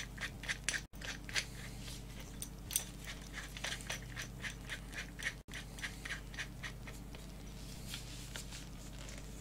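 Light, irregular clicks and ticks, a few a second, dying away after about seven seconds: a metal drill bit being taken from its case and fitted into a cordless drill.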